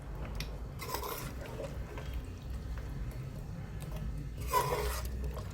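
Spoon stirring a watery pork curry with potatoes in a pot: wet sloshing with short scrapes of the spoon against the pot, about a second in and again near the end, over a steady low hum.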